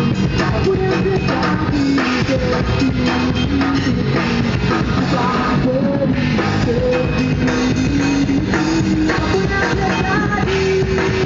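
Live rock band playing: electric guitars and bass over a Tama drum kit, steady and loud, with a melody line stepping between held notes.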